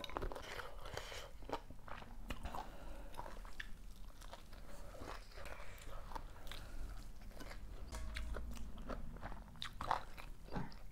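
A person chewing and biting mouthfuls of sour fermented bamboo-shoot and chicken curry close to the microphone, with irregular soft crunches and wet mouth clicks.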